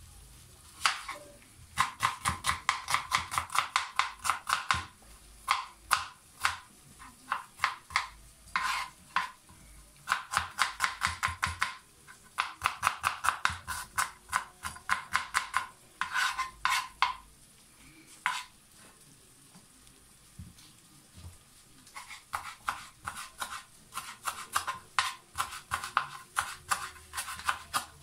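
Chef's knife chopping red onion, then spring onion near the end, on a plastic cutting board. The knife strikes the board in quick runs of several strokes a second, with short pauses between runs.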